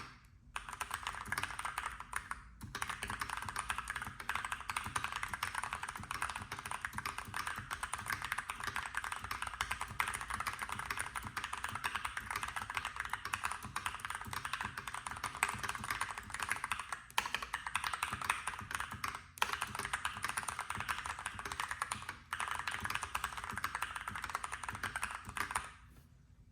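Keychron V1 mechanical keyboard with Gateron Brown tactile switches being typed on fast and steadily, a dense stream of key clicks with a few brief pauses, stopping just before the end.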